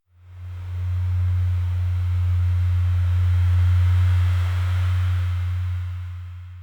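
A steady, loud, low engine hum with a faint hiss above it. It fades in over the first second and fades out near the end.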